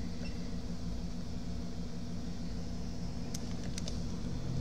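Steady low hum of a fan or motor, with a few faint light ticks about three and a half seconds in.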